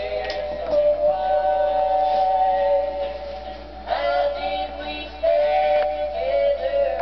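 Music: a melody of long held sung or synthesized vocal notes that change pitch every second or two.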